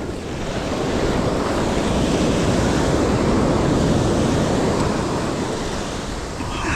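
Ocean surf breaking and washing up a beach, swelling over a couple of seconds and then slowly easing, with wind buffeting the microphone.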